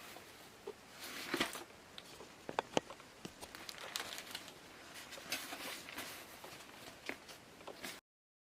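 Handling noise: scattered small clicks and taps with brief rustling and crinkling. It cuts off suddenly near the end.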